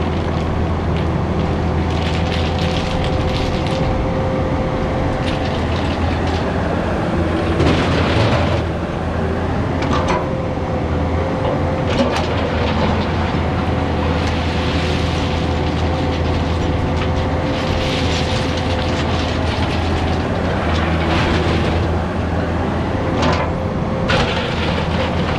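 Heavy paving equipment's engine running steadily under load, with intermittent clanking and scraping of metal and gravel.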